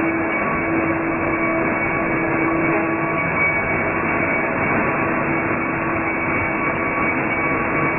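Optical color sorting machine running on plastic flakes: steady, dense machine noise with a low hum through it that fades about three seconds in.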